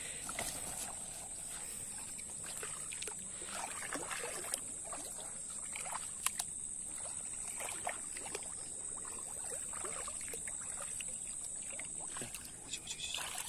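Shallow water sloshing and splashing at irregular moments, over a steady high-pitched hiss.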